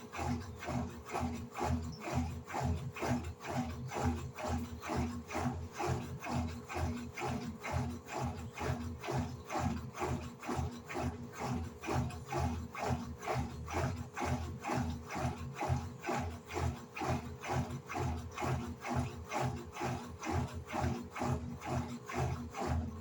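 Electrolux LED14 washing machine agitating its load, with even, rapid back-and-forth strokes of about two to three a second over a steady motor hum.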